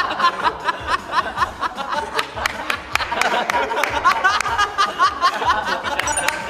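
A group of young men laughing hard together in a string of quick, high-pitched bursts, over background music.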